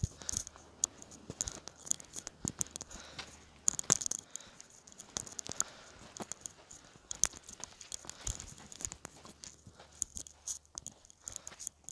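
Footsteps crunching over coarse sand and rock, in irregular sharp crunches and scrapes.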